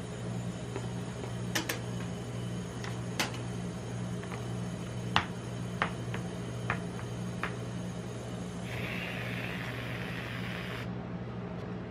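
Metal tongs and a spoon tapping and clicking against a paper cup and the steel pan, a few sharp clicks spread over several seconds, then an aerosol can of whipped cream hissing for about two seconds near the end. A steady low hum runs underneath.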